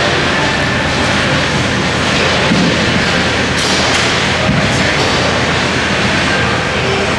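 Steady, loud background noise of a busy gym: a dense, even hiss and rumble with no distinct event standing out.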